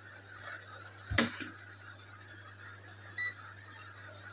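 A sharp knock about a second in, then a single short beep from the continuity buzzer of a UNI-T UT33D digital multimeter as the board is probed for a short, over a steady low hum.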